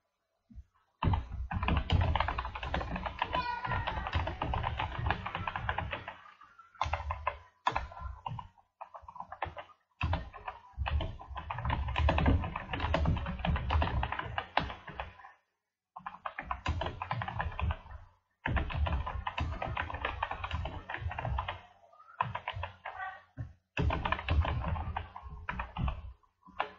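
Typing on a computer keyboard in bursts of a few seconds, separated by short pauses.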